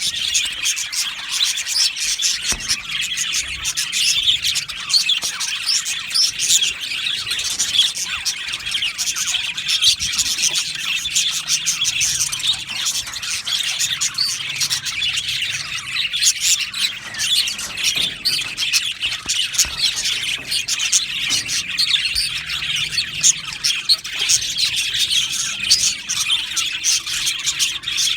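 A colony of budgerigars (budgies) chirping and chattering all together in an aviary, a dense, continuous mass of overlapping high chirps and warbles.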